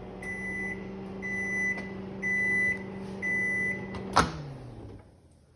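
Microwave oven running with a steady hum and sounding four long beeps about a second apart, the signal that the cooking time is up. About four seconds in, a sharp click cuts the hum, which winds down and fades.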